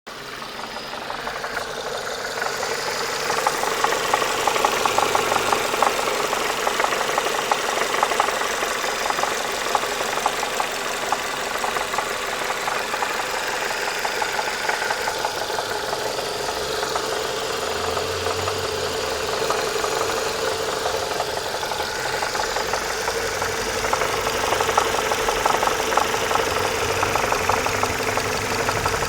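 Renault Mégane II engine running with a fast, steady knocking tick over the engine sound. The knock is the fault that shows up with the engine hot, at steady revs and when the throttle is released.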